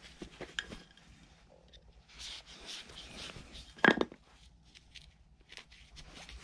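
Eight-strand fibre rope handled and worked by hand during an eye splice: scattered rustles and small clicks of the strands, with one louder sharp knock about four seconds in.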